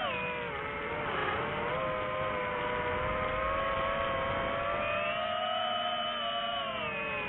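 Multirotor drone's motors and propellers whining, several close pitches that shift together with throttle: a dip about a second in, a rise about five seconds in, and a drop near the end.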